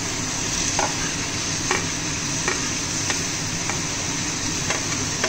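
Chopped onions and tomatoes sizzling in hot ghee in a pan, with a spoon stirring and scraping through them. The spoon knocks against the pan about once a second over a steady frying hiss.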